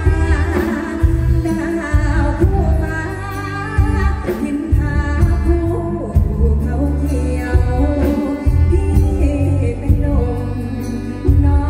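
A woman sings a slow Thai luk thung song into a microphone over a live band through a stage PA. Sustained bass notes and drums sit under the vocal.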